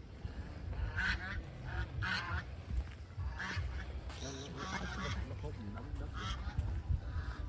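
Farm fowl honking in short, repeated calls, with wind rumbling on the microphone.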